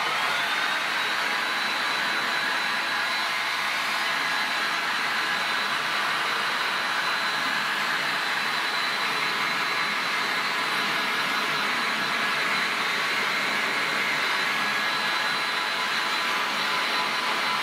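Electric heat gun switched on, its fan motor spinning up and then running steadily: a rushing blow of air with a constant high whine.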